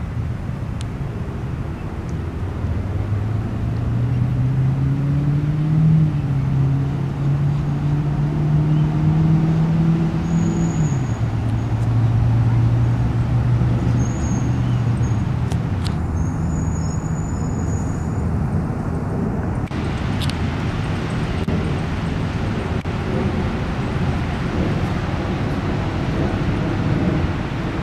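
Steady motor engine drone with traffic-like background noise; its low hum rises in pitch a few seconds in, holds, then drops back about eleven seconds in.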